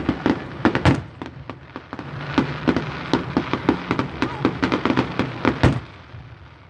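Aerial fireworks going off in quick succession: a dense run of pops and crackles, several a second, with louder booms about a second in and near six seconds, thinning out near the end.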